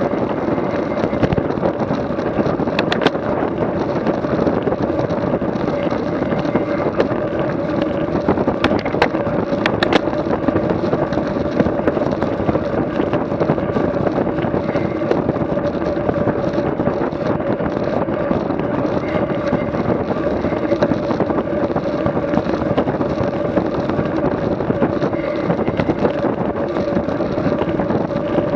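A vehicle engine running at a steady speed, with wind rushing over the microphone and a few brief clicks about three and nine seconds in.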